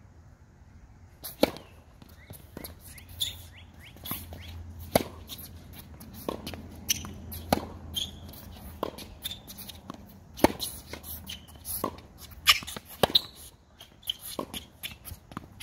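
Tennis rally on an outdoor hard court: the ball is struck by rackets and bounces on the court, making sharp pops about once a second that start about a second in.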